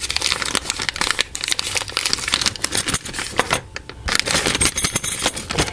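Clear plastic bag crinkling and rustling as hands work a steel corner brace out of it, with a brief lull about four seconds in.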